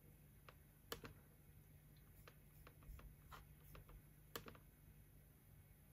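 Near silence with a few faint computer mouse clicks. The two clearest come about a second in and a little after four seconds, over a faint low hum.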